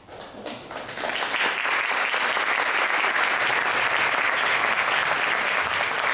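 Audience applauding: a few scattered claps at first, swelling about a second in to full, steady applause.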